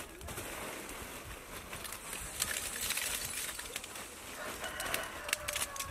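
Lumps of charcoal poured from a sack into a smoking fire pit, clattering in irregular clicks with a rush of hiss partway through.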